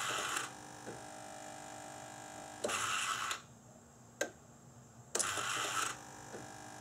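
Idle air control valve stepper motor of a 1997 Nissan Maxima whirring in three short bursts as its shaft moves in and out with the ignition switched on and off, with a sharp click between bursts. The shaft moving shows the valve is working.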